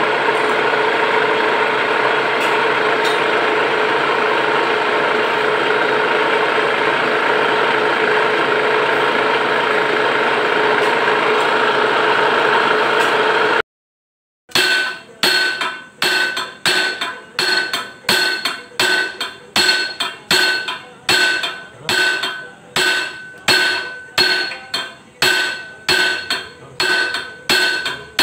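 A metal lathe running steadily, a constant mechanical noise with a hum of several tones. After a sudden cut about halfway through, a hammer strikes the metal end piece of a steel hydraulic cylinder tube held in the lathe, about one and a half blows a second, each ringing.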